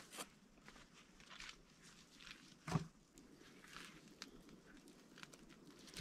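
Footsteps crunching through snow and brittle twigs, with light knocks of wood being handled. One dull thump stands out, about halfway through.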